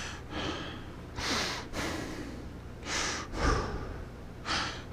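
A man breathing close to a microphone fitted with a foam cover to cut breath noise: about four soft, breathy in-and-out breaths roughly a second and a half apart.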